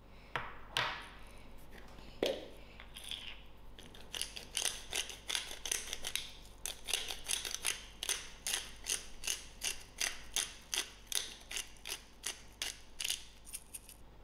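A small glass spice grinder with a twist-top pepper mill being turned by hand, its grinding mechanism clicking in a quick, even rhythm of about three clicks a second. A few separate knocks come in the first couple of seconds, before the clicking settles into its rhythm.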